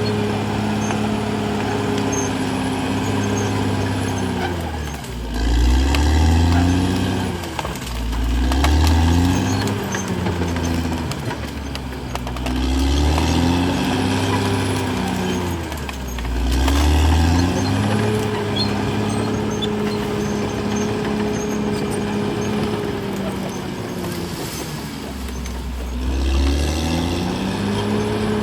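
CAT D6R XL bulldozer's diesel engine running hard, its pitch sagging and climbing back again about five times as the load comes and goes.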